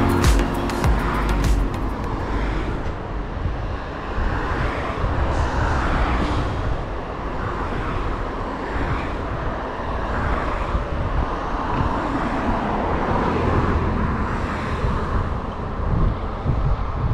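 Wind rumbling on a GoPro's microphone while cycling, with tyre and traffic noise from cars passing on the road; one car overtakes near the end.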